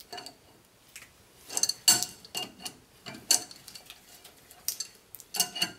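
Steel wrench clinking on a jam nut as the nut is run down the threaded push rod of an air brake chamber: a handful of sharp metallic clicks and clinks at irregular intervals.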